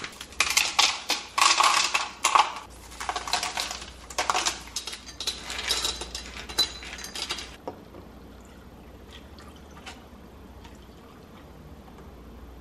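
Tiny ice cubes clattering as they are pushed out of silicone ice-cube trays and tipped into a glass jar: a dense run of rattling clinks that stops about seven and a half seconds in, followed by only a few faint ticks.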